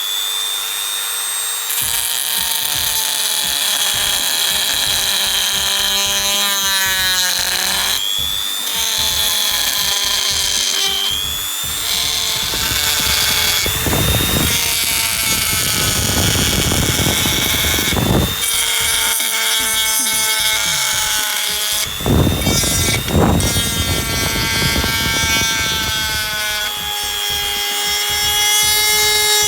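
Makute DG002 mini die grinder running at high speed with a steady high-pitched whine. Its pitch sags several times as the bit is loaded. Twice, around the middle, the whine is joined by a few seconds of harsh grinding noise as the bit bites into the workpiece.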